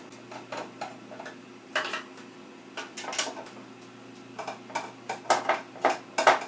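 Screwdriver driving in the screws that hold a CPU heatsink down on its bracket: irregular metallic clicks and short scrapes, growing busier near the end as the screws are snugged down.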